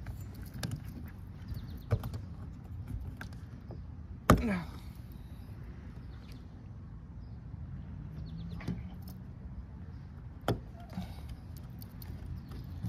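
Scattered light clicks and knocks, with one loud sharp knock about four seconds in, over a low steady hum.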